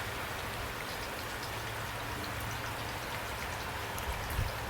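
Steady rain falling, an even hiss with scattered faint drop ticks over a low hum, and a soft thump about four seconds in.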